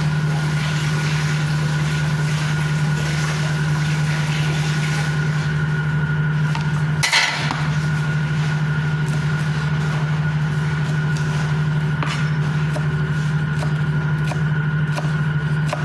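A fan motor hums steadily. From about twelve seconds in, a kitchen knife chops fresh greens on a plastic cutting board at about two strokes a second. A short rustle comes about seven seconds in.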